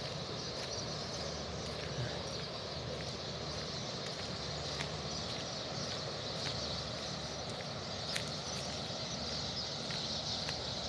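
Steady outdoor background hiss with a few faint, scattered ticks.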